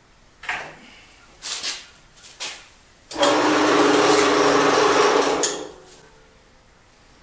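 A few metal clunks as the Milwaukee horizontal band saw's arm is handled and lowered. Then the saw's motor and blade run loudly for about two and a half seconds and wind down, as the arm reaches the bottom of its stroke and the automatic shutoff bar trips the switch.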